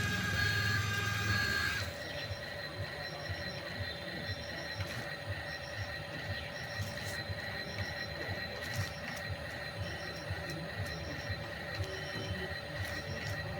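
Remote-control toy excavator's small electric motors and plastic gearboxes whining steadily, with a fast low rattling pulse. It is preceded by a louder sound of several steady tones that cuts off about two seconds in.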